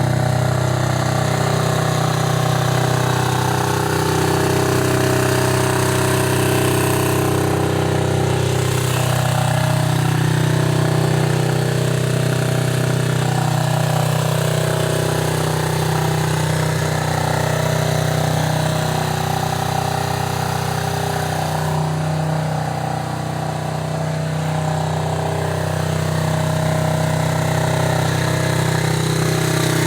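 A 50cc pit bike engine running steadily, near idle, its pitch wavering slightly and dipping a little about two-thirds of the way through. The engine has a freshly rebuilt top end and a new carburettor.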